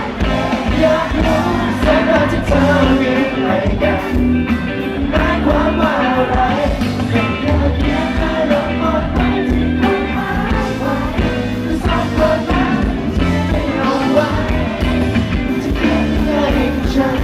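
Live band playing a pop-rock song, with singing over a steady drum beat.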